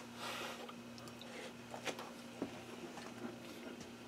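A person chewing a bite of tender chicken, faint, with a short hiss near the start and a few soft clicks.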